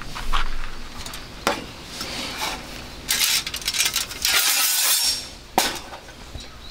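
Metal clinks and scraping as a folding metal stove stand is handled and unfolded on a wooden board, with a few seconds of rubbing noise in the middle and a sharp click about five and a half seconds in.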